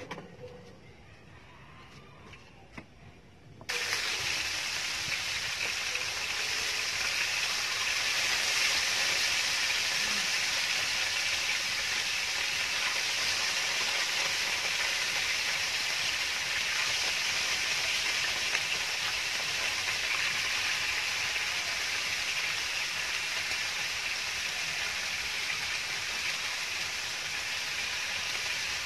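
Raw chicken pieces sizzling on a hot grill pan over a portable gas stove: a sudden steady sizzle starts about four seconds in and holds to the end.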